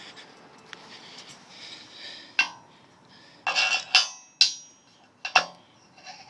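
Metal hardware being handled: a few sharp metallic clanks and clinks with a brief ring, the loudest clustered in the second half.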